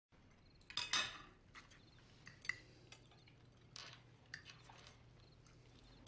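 Knives and forks clinking and scraping against dinner plates as several people eat, in scattered clinks with the loudest clatter about a second in.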